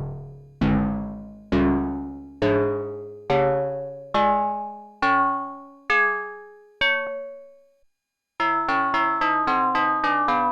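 MFB-301 Pro synthesizer playing a slow line of about nine struck notes, each ringing out and fading, the tone growing higher and brighter as it goes. After a short pause near the end, a fast, steady run of repeating notes starts.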